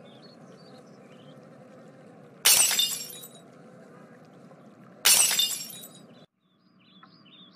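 Two loud glass-smashing crashes from a cartoon sound effect, about two and a half seconds apart, each a sudden smash that rings away over about a second, standing for a hammer breaking in a door. A faint steady background runs underneath and drops out near the end.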